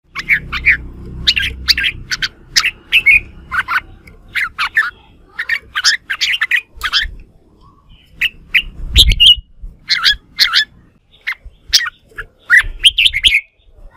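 Red-whiskered bulbul singing a quick, irregular run of short, loud, chirping phrases: the competitive 'fight' song of a caged contest bird. There is a dull low thump about nine seconds in.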